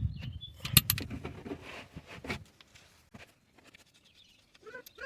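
A run of sharp, irregular metallic clicks and clinks from hand tools (wrench or socket being handled and fitted) during the first half, then little sound.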